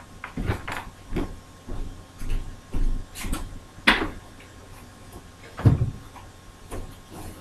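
Scattered knocks, clicks and rustles of things being moved and handled as someone rummages for something, with a sharp knock about four seconds in and a heavier thump a couple of seconds later.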